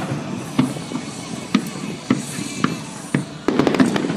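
Fireworks display: aerial shells bursting with sharp bangs about every half second, then a rapid flurry of crackling bangs near the end.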